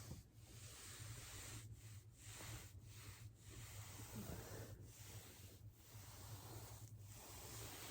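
Faint rubbing of a body and clothing rolling over a foam roller, over a steady low hum; no joint cracks are heard.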